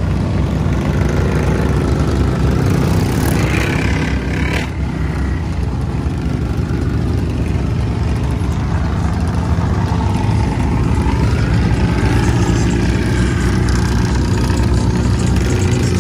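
Off-road vehicle engines running loudly with a steady, heavy rumble.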